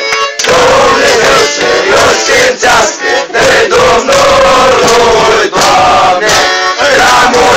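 A crowd of men singing loudly together, close to the microphone.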